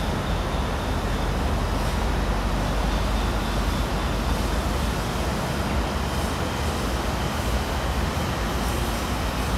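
Steady, unbroken background rumble of the kind that distant road traffic makes, deepest in the lows, with no distinct events.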